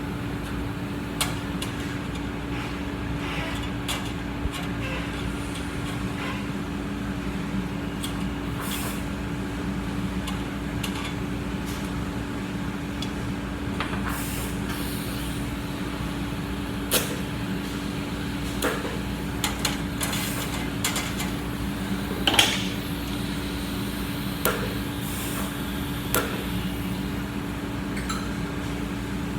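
Welding arc running steadily with a constant low buzz and hiss, broken by a few short sharp crackles, the loudest about two-thirds of the way through.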